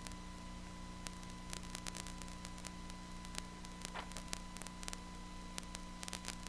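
Steady electrical hum and static hiss with scattered faint clicks.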